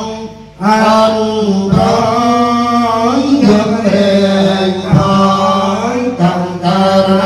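Men chanting Buddhist verses in Pali together, holding long notes on a steady pitch, with a short pause for breath just under a second in.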